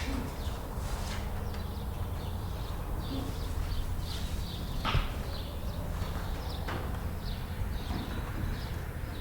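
Barn ambience: chickens clucking and chirping in short scattered calls over a steady low rumble, with a sharp knock about five seconds in.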